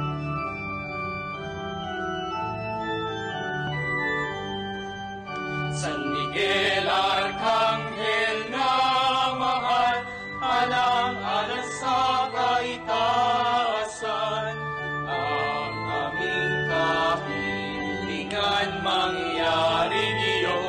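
Hymn with organ: held organ chords, with singing coming in over them about six seconds in.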